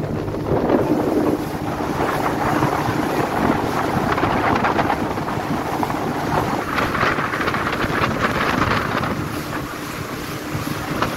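Wind blowing on the microphone, a steady noisy rush.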